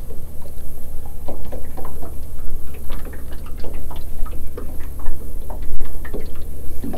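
Small wind-driven waves lapping and slapping against the side of a small boat, a quick, irregular run of light splashes and ticks over a steady low rumble.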